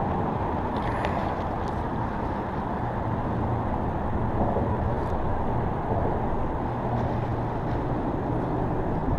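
Steady drone of road traffic on the bridge overhead, an even low rumble with a low hum running through it.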